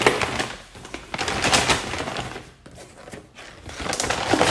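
Brown paper bag rustling and crinkling as it is handled, in loud crackling bursts with a lull around three seconds in.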